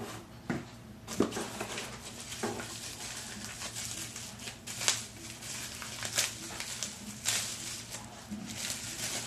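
Plastic packaging crinkling and rustling as an item is unwrapped by hand, with sharper crackles every second or so.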